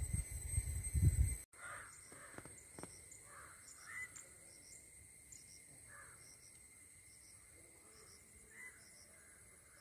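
Irregular low rumbling on the microphone for about the first second and a half, cut off suddenly. After that, quiet outdoor ambience: a steady insect drone with repeated short high chirps, and several faint bird calls scattered through it.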